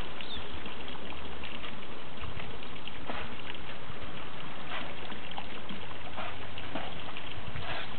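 Steady noise of running, trickling water, with a few light splashes.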